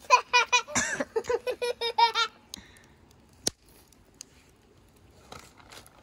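A child laughing in a quick run of high-pitched giggles for about two seconds, followed by a single sharp click.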